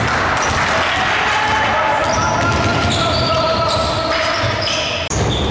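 Basketball game sound in a large gym: a ball bouncing on the hardwood court, with players' voices echoing around the hall.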